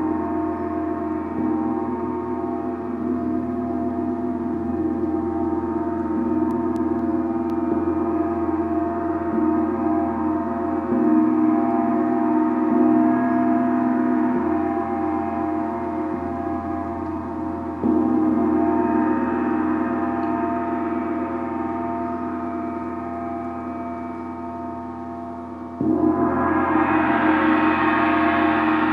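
Gong ringing with a long, slowly fading sustain of many overlapping tones. It is struck again three times, about 11, 18 and 26 seconds in, and the last stroke is the loudest and brightest.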